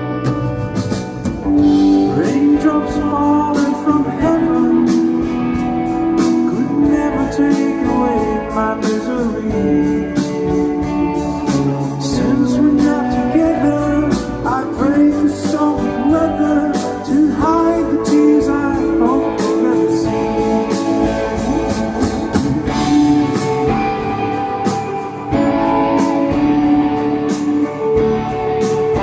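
Live pop-rock band playing, recorded loud in a large arena: drums, guitar and keyboards under a sung melody.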